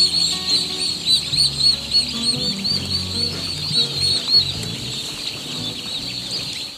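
A crowd of day-old tom turkey poults peeping without pause, many high arched peeps overlapping. Background music with held low notes plays underneath, and everything cuts off abruptly at the very end.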